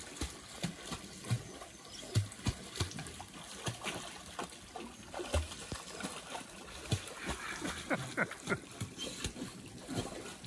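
A dog swimming and paddling in a muddy pool, the water splashing and sloshing around it in many small, irregular splashes.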